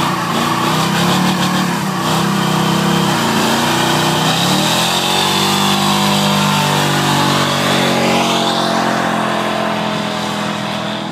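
Pickup truck's engine revving hard and held high during a burnout. The rear tyres spin and squeal on pavement, both wheels driven together by a welded rear differential. The revs dip briefly about four seconds in, then climb back.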